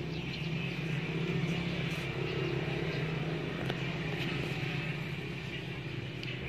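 A steady low engine hum, slightly louder in the first half.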